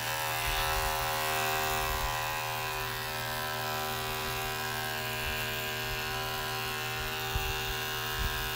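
HOLDOG cordless electric pet clipper running steadily with an even motor hum while trimming the fur on a corgi puppy's paw, with a couple of soft bumps near the end.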